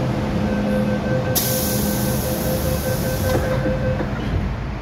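MTR M-Train electric multiple unit standing at a station platform. The carriage hums with a steady rumble and faint steady tones. A sharp hiss of air starts about a second and a half in and lasts about two seconds.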